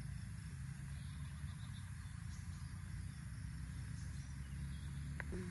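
A motor running steadily with a low hum, with a few faint high chirps above it.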